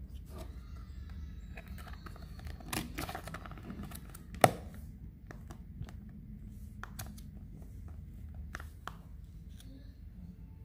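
Hands handling a clear plastic food tub: scattered clicks and crinkles of the plastic, with one sharp click about four and a half seconds in, the loudest.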